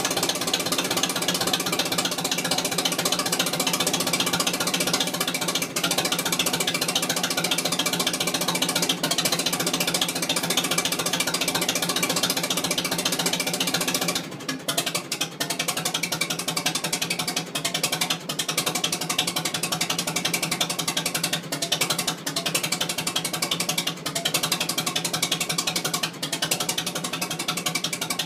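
Vintage steel-wheeled farm tractor's engine running steadily. About halfway through it turns a little quieter and more uneven, with brief dips.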